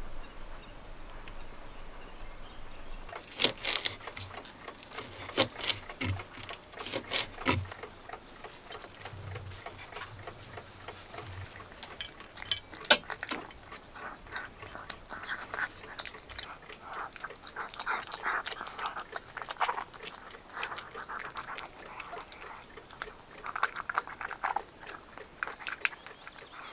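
A small dog eating from a steel bowl: sharp clinks against the metal in the first few seconds, then quicker, softer chewing sounds.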